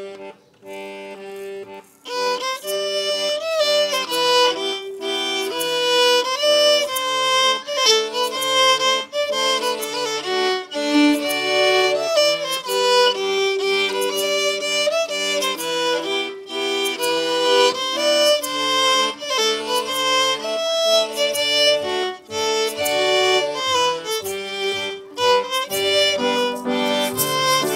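A fiddle leads a slow waltz tune, accompanied by accordion and piano. The tune starts softly, and the full band comes in about two seconds in.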